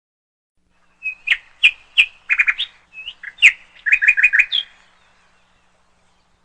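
A run of bird-like chirps and quick trills, starting about a second in and stopping before five seconds.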